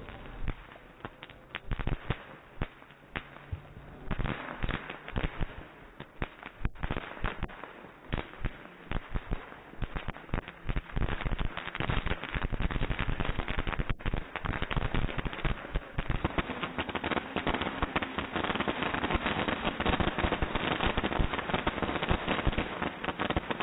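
Ground firework fountains crackling: rapid sharp pops and crackles, scattered at first, then from about four seconds in a dense, nearly continuous crackle that thickens further in the second half.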